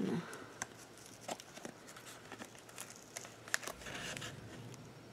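Faint rustling of paper and a few small clicks and taps as a glued paper craft piece is handled and pressed, with a brief rustle a little before the end.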